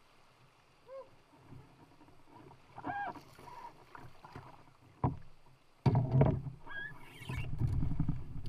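Canoe paddling: paddle strokes and river water splashing around the hull. About five seconds in there is a sharp knock, and louder splashing and thudding follows near the end.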